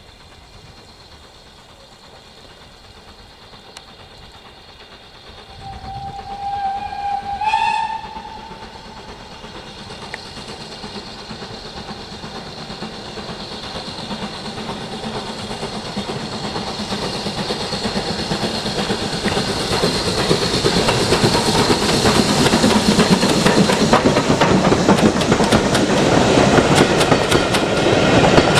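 BR Standard Class 4MT 2-6-4 tank steam locomotive No. 80151 approaching with a passenger train. It sounds its whistle once for about two seconds, about six seconds in, the pitch rising slightly at the end. The train then grows steadily louder as it draws near, and near the end the coaches pass with a rapid clickety-clack of wheels over the rail joints.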